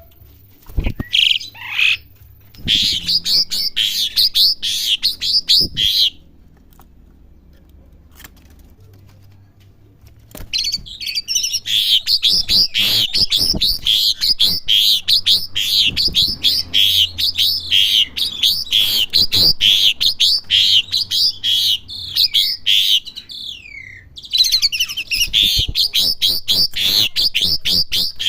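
Asian pied starling (jalak suren) practising its song: fast, chattering runs of sharp, squeaky notes. There is a pause of a few seconds about six seconds in, and a brief break a few seconds before the end.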